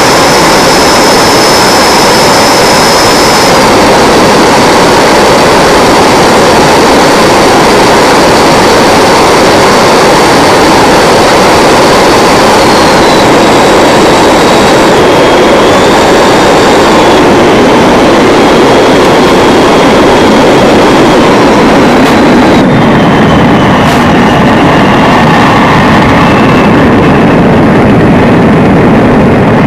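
Freewing T-33 RC jet model in flight: the electric ducted fan and rushing air make a loud, steady noise. Thin high tones shift to new pitches several times as the throttle changes.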